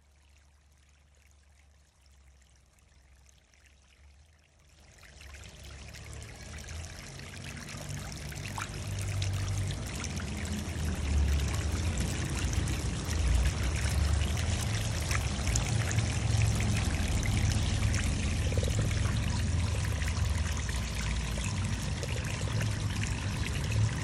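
Water fountain running: splashing, falling water that rises from near quiet about five seconds in, grows louder over the next few seconds, then holds steady.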